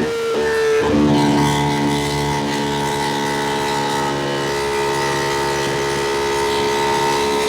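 Ducati Panigale V2 sport bike's V-twin engine running under way. The note dips twice in quick succession in the first second, then holds steady at constant revs.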